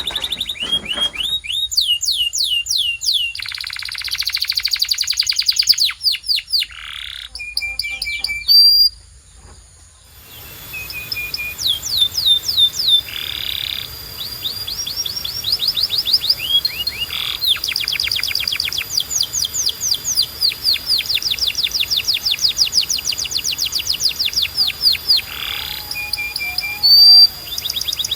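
Domestic canary singing: fast trills of rapidly repeated chirps and swooping notes, rolled into long phrases. The song breaks off briefly about ten seconds in, then starts again over a faint steady hiss.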